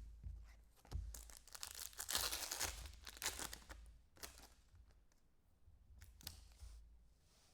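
Plastic foil wrapper of a trading-card pack torn open and crinkled, with scattered clicks of cards being handled. The tearing rustle is loudest about two seconds in, then gives way to fainter handling.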